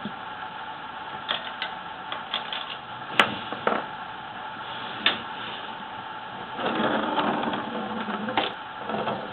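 Small clicks and knocks from hands working on a small tabletop etching press (the Mini Press), then about two seconds of steady mechanical rattling near the end.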